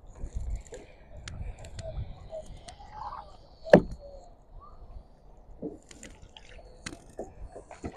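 Kayak paddle strokes: the blades dipping into and lifting out of the water with small irregular splashes and drips, and one sharper, louder hit a little before halfway.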